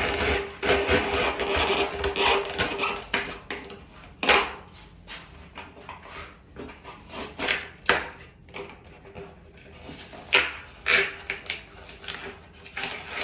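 Hand scuffing of a surfboard's fiberglass with sandpaper, a steady rubbing for the first few seconds. It then gives way to a run of sharp cracks and scrapes as a utility knife blade cuts the damaged fiberglass out of a fin chop.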